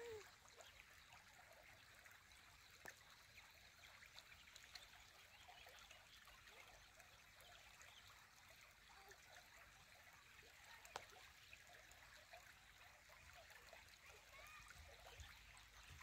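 Faint, steady trickle of flowing water, with a couple of faint clicks.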